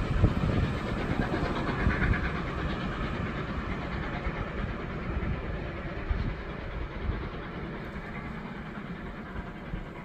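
Steam-hauled passenger train drawing away from a standstill: the coaches roll past on the rails while the sound of Peppercorn A1 class locomotive 60163 Tornado fades steadily into the distance.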